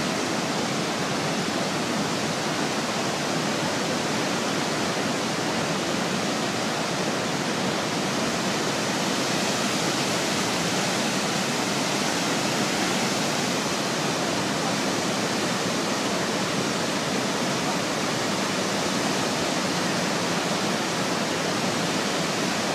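Large waterfall heard close to its foot: a steady, unbroken rush of heavy falling water.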